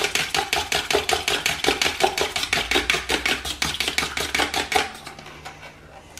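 A fork beating an egg in a clear plastic bowl: rapid, even tapping and clicking against the bowl, about eight strokes a second, stopping about five seconds in.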